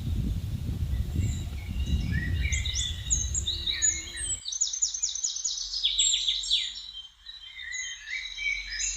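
Several wild birds singing in a spring forest, with overlapping chirps and quick trills of repeated notes. For about the first four seconds a low rumble of wind on the microphone runs under the song, then stops abruptly.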